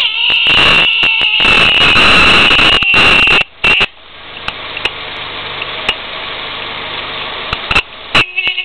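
Fifth-generation Honda Civic's electric horn sounding in a raspy, sputtering blast for about three and a half seconds, then a short blip, and a few broken stuttering beeps near the end. It sounds like a fart: the horn is not sounding properly.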